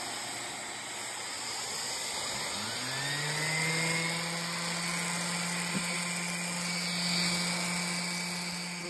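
DeWalt random orbital sander sanding EVA foam: a steady hiss, then about two and a half seconds in the motor spins up, rising in pitch, and settles into a steady hum.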